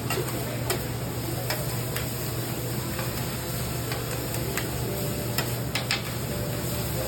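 Philly steak meat sizzling on a flat-top griddle, with sharp irregular taps of metal spatulas chopping it, over a steady low hum.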